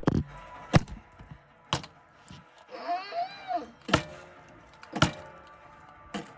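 Several sharp knocks or taps about a second apart, with a short, wavering, high-pitched sound about three seconds in.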